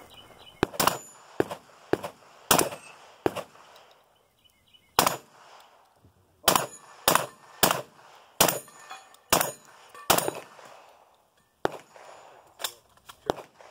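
Long gun fired in a string of about sixteen single shots, roughly one every half second to second, with two short pauses of about a second and a half.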